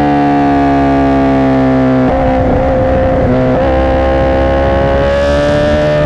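2017 Honda CBR1000RR SP1's inline-four engine running through a Racefit Growler X exhaust while riding. The note eases down in pitch for about two seconds, turns rougher and less even for a second or so, then climbs steadily as the bike accelerates.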